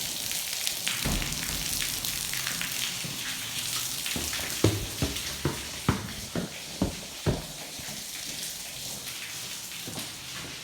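Water pouring from an open, uncapped pipe and splashing onto the floor: a steady rain-like hiss. The pipe was left open when the water was turned on, so it is flooding the floor. About halfway through there is a run of about six sharp knocks, roughly half a second apart.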